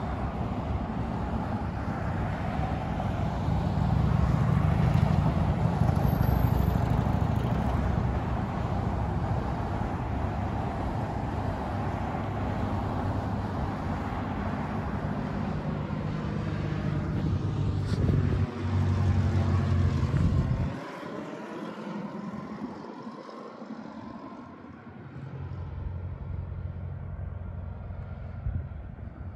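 Airliner on approach to land: a steady low jet rumble mixed with road traffic passing close by. The rumble drops off sharply about two-thirds of the way in, then another approaching aircraft's rumble rises near the end.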